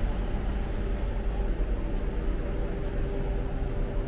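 A row of running vending machines humming steadily, a constant tone over a low, even rumble.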